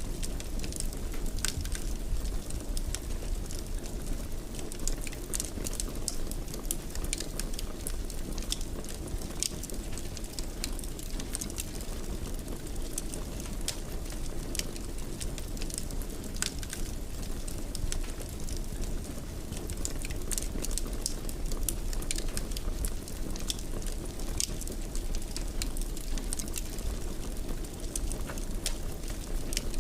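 Fireplace fire crackling: a steady low rush of flames with frequent irregular sharp pops and snaps.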